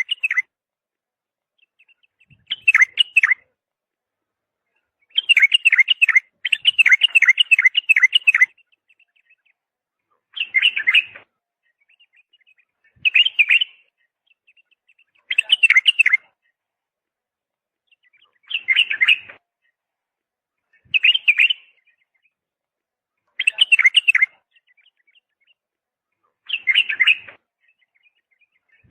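A bird calling in short bursts of rapid, high chirps every two to three seconds, with a longer run of chirping about five to eight seconds in. Silence between the calls.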